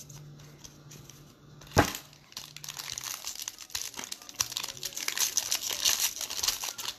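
A foil trading-card pack wrapper torn open and crinkled by hand, the crinkling starting about two seconds in and growing denser toward the end. Just before it, one sharp knock is the loudest sound.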